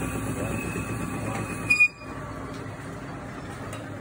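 Metal-turning lathe running, a steady mechanical whir with a thin high whine. A little under two seconds in there is a short sharp squeal and clunk, and the machine then carries on as a quieter, steadier hum.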